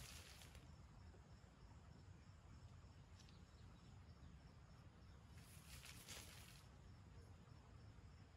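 Near silence: faint outdoor background with a low rumble and two brief, faint hissing swells, one at the start and one about six seconds in.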